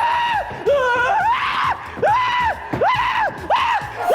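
A high-pitched voice shrieking in about six short cries one after another, each rising and then falling in pitch.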